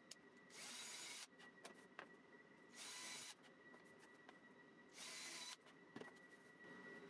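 Faint, three short bursts of a power drill boring through thin MDF, each lasting about half a second and a couple of seconds apart, with light clicks of handling between them.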